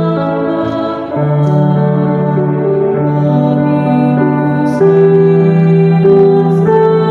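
A woman singing a hymn in Indonesian into a microphone, accompanied by an electronic keyboard, with long held notes that change every second or two.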